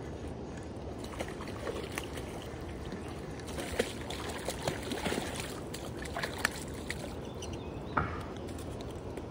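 Steady rush of river rapids, with a few short splashes and clicks between about three and eight seconds in.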